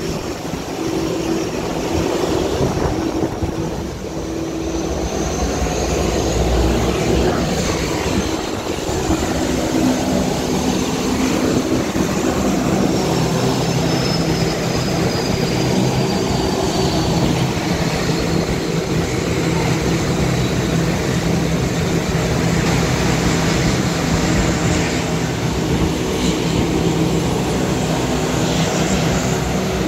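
Aircraft engines running steadily: a continuous drone with a faint high whine that slowly falls in pitch around the middle.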